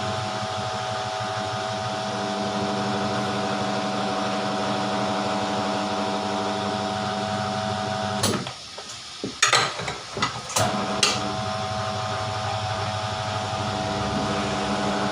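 Tyre changer machine's electric motor and gearbox turning the turntable with a steady hum. It stops about eight seconds in, a few sharp metal clacks follow, and then the motor starts again and runs steadily.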